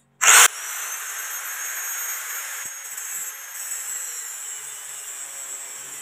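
Handheld angle grinder switched on about a quarter second in with a short loud burst, then running steadily with a high whine as its disc cuts into steel.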